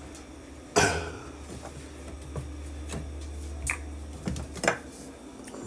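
Plastic vegetable oil bottle being handled and its screw cap twisted off: one sharp click about a second in, then a few lighter clicks. A steady low hum runs underneath.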